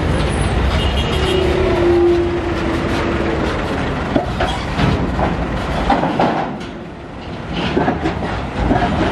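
Loaded Hino Ranger diesel truck driving past and onto a steel ferry loading ramp, the engine rumbling as the tyres clank and knock over the ramp's steel plates and joints from about four seconds in. A brief steady tone sounds about a second in.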